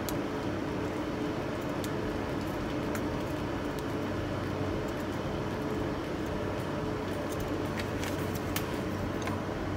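Steady hum of workshop equipment with a low drone and a thin high tone, and a few light clicks of a metal eyeglass frame and lens being handled.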